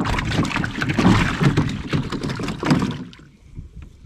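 Lake water splashing and sloshing beside a boat's hull as a hand works a caught bass back and forth to revive it. The splashing is loud and choppy and stops about three seconds in.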